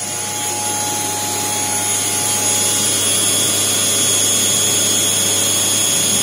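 Chevalier CNC mill running, its spindle driving a 2 mm ball-nose end mill back and forth across a small gear blank. A steady machining noise with a high whine and a low hum, growing a little louder about two seconds in.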